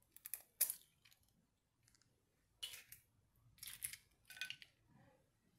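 Quail eggshell being cracked and torn open by hand: a handful of short, crisp crackles spread over a few seconds.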